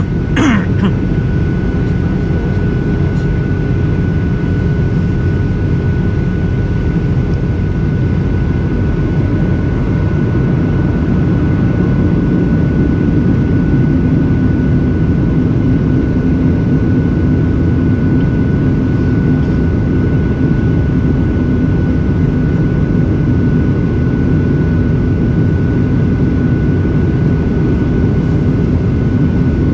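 Cabin noise inside a Boeing 737-800 airliner in flight: the steady rush of engines and airflow, with a thin steady whine above it. About twelve seconds in, a low hum comes up more strongly.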